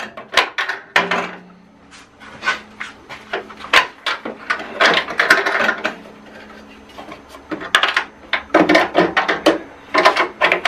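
Clicks, knocks and scraping of hands working the plastic chip hood and fence of a switched-off Güde GADH 200 planer-thicknesser, with two longer spells of rustling from the wood shavings packed inside, around the middle and near the end. A faint low hum runs underneath.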